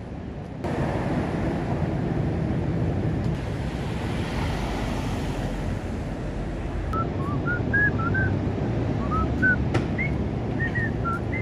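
Steady wind rumble on the microphone over outdoor street noise, with a run of about a dozen short, high chirping notes in the last few seconds.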